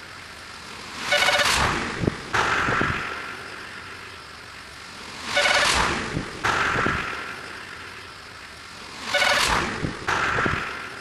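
A short horn-like toot followed by a rushing whoosh that fades, repeated three times about four seconds apart.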